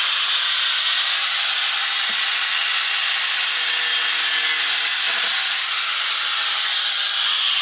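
Angle grinder with a diamond blade cutting excess clay off the edge of a handmade Saltillo terracotta tile: a steady, loud, high-pitched grinding.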